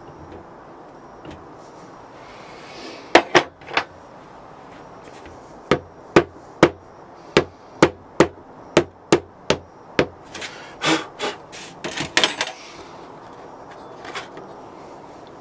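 Sharp taps of a hand tool on a sand-casting mould of packed casting sand around a 3D-printed pattern: two knocks, then a run at about two a second, a quicker flurry, and a last tap near the end.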